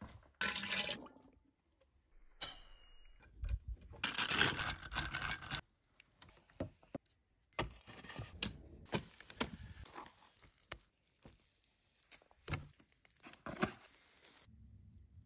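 A string of short, sharply cut handling sounds: scraping, knocks and rustles, among them a steel shovel scraping through dirt beside a heap of charcoal. The loudest burst comes about four seconds in.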